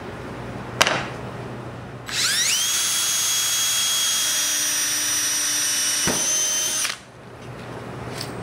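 Cordless drill drilling through a thin aluminum strip for about five seconds. Its whine rises quickly as it spins up, holds steady, then stops. A sharp click comes about a second in.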